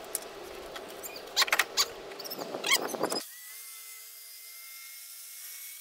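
A few handling clicks and knocks, then from about three seconds in a DeWalt 7-1/4-inch circular saw running along a track guide, trimming the end of a bifold door. The saw is heard only faintly, as a steady whine.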